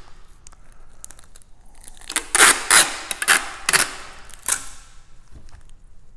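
Packing tape being pulled off the roll of a handheld tape dispenser: a run of about five quick, loud ripping pulls starting about two seconds in.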